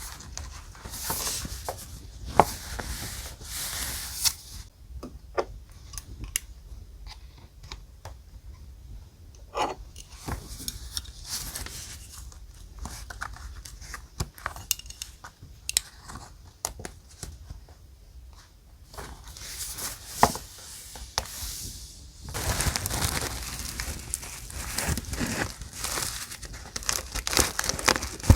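Paper handled close up: rustling, crinkling and tearing in bursts, with scattered small taps and clicks in a quieter middle stretch and a longer run of rustling in the last few seconds.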